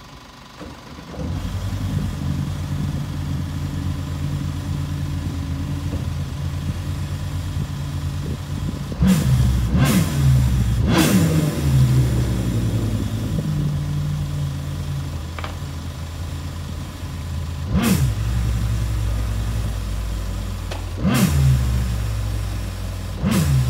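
Mini jet boat's engine starting about a second in and running at a low idle, blipped several times: three quick revs in a row near the middle, then three more spread out toward the end.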